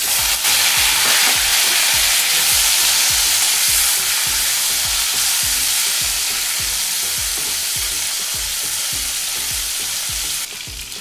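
Hilsa fish head frying in hot oil in a wok: a loud sizzle that starts suddenly as the head goes into the oil, then holds steady and eases off slightly near the end.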